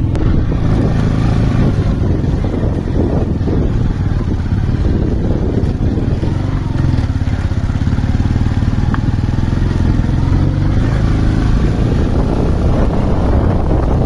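Motorcycle engine running at a steady speed while riding, with wind and road noise.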